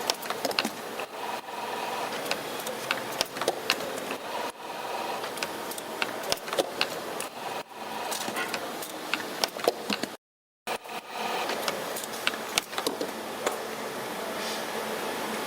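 CNC-620RS spring-forming machine running, forming magnet wire into springs: a steady mechanical hum with frequent sharp clicks and ticks. The sound cuts out completely for about half a second around ten seconds in.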